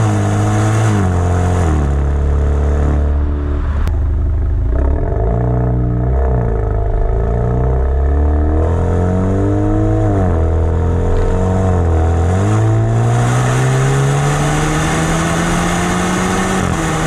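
Exhaust of a 2019 Alfa Romeo Giulia Ti's 2.0-litre turbocharged four-cylinder with the muffler removed and the resonator kept, heard at the tailpipe while driving. The engine note drops in the first couple of seconds, rises and falls with throttle and shifts, then climbs steadily over the last few seconds under acceleration.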